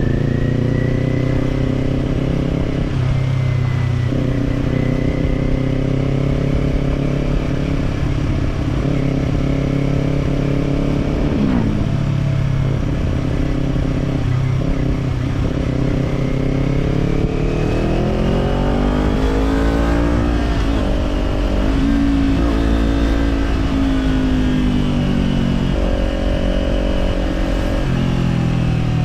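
Kawasaki Z400 parallel-twin engine running through an Orion Katya slip-on exhaust while riding. The engine holds a steady pitch, dips briefly a little before halfway, then revs climb to a peak about two-thirds of the way in and drop away again.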